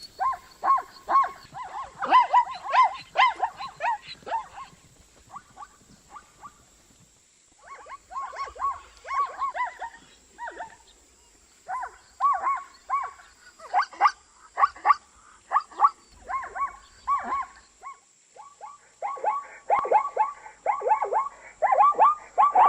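Zebras calling: rapid runs of short, yelping barks in bouts, with a lull of a few seconds about four seconds in and the calling getting louder near the end.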